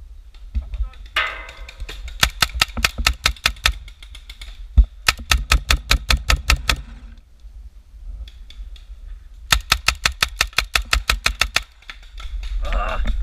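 Paintball markers firing in three rapid strings of shots, about eight sharp pops a second, each string lasting around two seconds.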